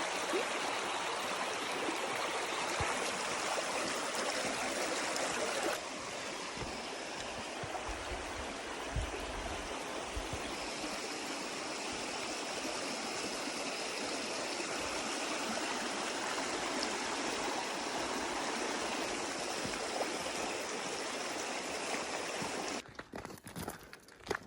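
Steady rushing of a flowing bush creek or stream, shifting slightly in tone about six seconds in and cutting off shortly before the end.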